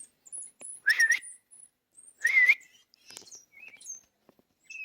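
A man whistling twice to call his dog back: two loud, short warbling whistles about a second and a half apart.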